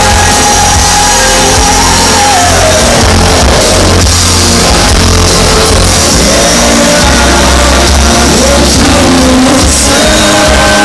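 Live rock band playing loud through a concert PA, heard from among the audience. A long held melody line bends in pitch over the first few seconds above the band.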